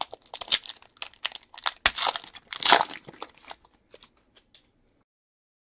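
Plastic wrapper of a football trading-card pack being torn open and crinkled by gloved hands: a rapid run of irregular crackles, loudest a little under three seconds in, that stops well before the end.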